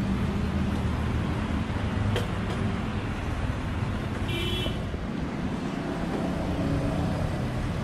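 Road traffic with motor vehicle engines running steadily. There is a click about two seconds in and a short high-pitched beep about four seconds in.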